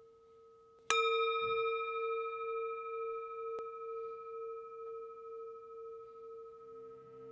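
A single bell-like strike about a second in, over a faint steady tone, ringing on with several clear overtones and fading slowly with a gentle wavering. Low sustained musical tones come in near the end.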